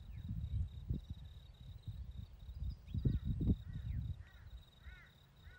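Outdoor ambience: a steady high insect trill, low irregular rumble and thuds, and from about halfway a bird giving a run of short arched chirps about twice a second.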